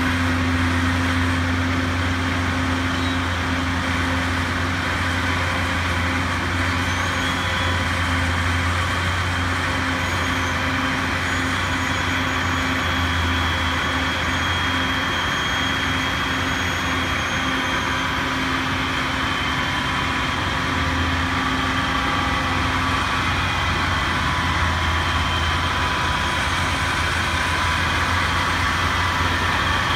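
Crane truck engine running steadily.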